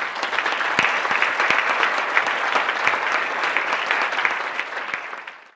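Audience applauding: dense, sustained clapping that fades out near the end.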